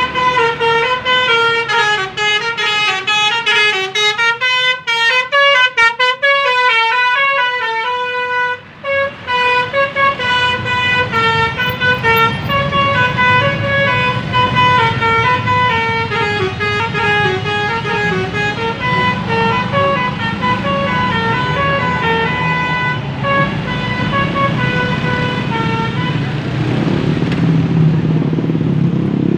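A bus's telolet basuri musical air horn plays a long tune of stepping notes over the rumble of a running engine. The tune stops near the end, leaving the engine and road noise louder.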